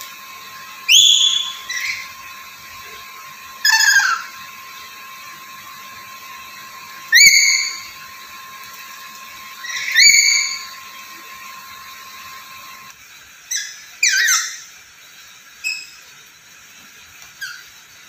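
Black-capped lory giving loud rising whistled calls about every three seconds, then a quick pair of calls and a few shorter, fainter ones near the end.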